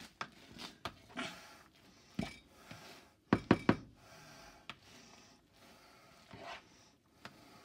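A fork fluffing cooked rice in a plastic rice-cooker pot: soft scraping with scattered knocks and taps of the fork against the pot, the loudest a quick run of three about three and a half seconds in.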